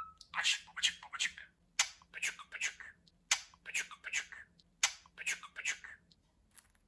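Budgerigar making quick runs of short scratchy rasps and clicks.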